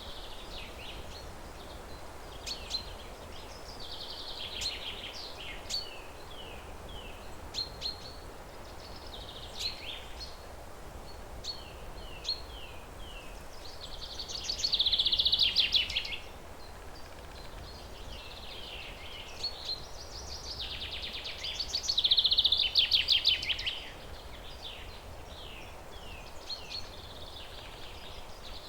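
Forest songbirds singing over a steady background hush. Several series of short falling notes recur throughout. Two loud, fast trills come about halfway through and again about three-quarters of the way through.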